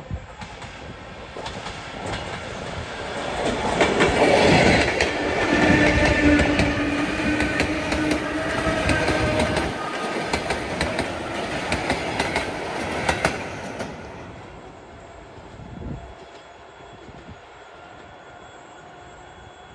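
ET2M electric multiple unit passing close by: its wheels clatter over the rail joints and a steady tone sounds as the cars go past. It builds to its loudest in the middle, then fades away near the end.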